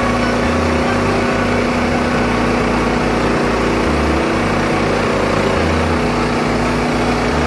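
Wood-Mizer LT15START portable band sawmill's engine running steadily at a constant pitch.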